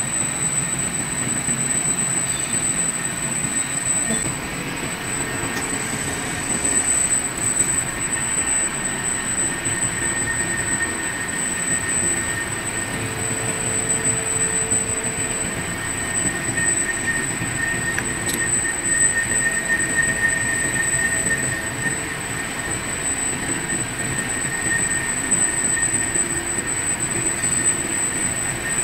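Large lathe boring out the bore of a heavy metal ring: a steady running and cutting noise with a constant thin high whine, and a lower whistle from the cut that swells through the middle and fades again.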